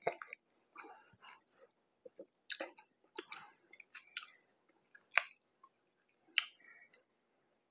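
A person chewing a mouthful of ground pork mac and cheese burger with the mouth closed: soft, wet smacks and clicks at irregular intervals, with two sharper smacks in the second half.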